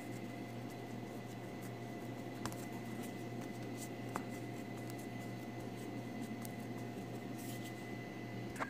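Soft rubbing and patting of hands flattening a ball of dough on a floured tabletop, under a steady low hum. Two faint clicks come a few seconds in.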